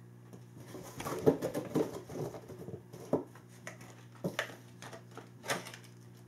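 Plastic blister pack of a cat toy being handled against a cardboard box: a run of rustling and crinkling with several sharp clacks, over a faint steady hum.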